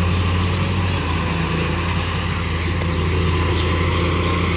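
Excavator diesel engine running steadily with a deep, even drone.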